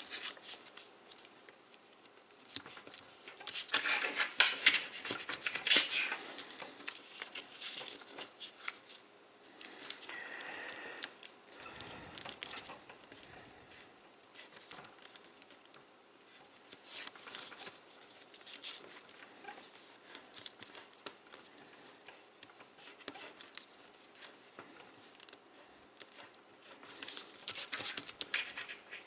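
Sheet of paper being folded and creased by hand: crinkling and rustling, with scraping as creases are pressed and run down by the fingers. It comes in irregular bursts, loudest a few seconds in and again near the end.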